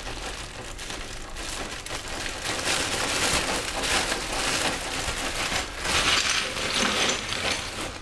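Ice cubes clattering and crunching as they are added to a plastic zip-lock bag, with the plastic crinkling; a dense, continuous crackle that grows louder about two to three seconds in.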